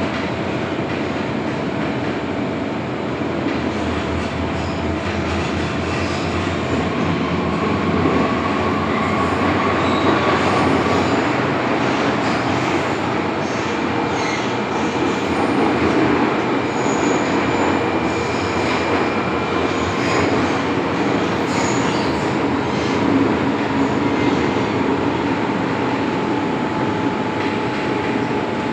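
MTR M-Train electric multiple unit running between stations: a steady rumble of wheels on rail with several held whining tones from the drive. Faint high wheel squeals come in now and then through the middle of the run.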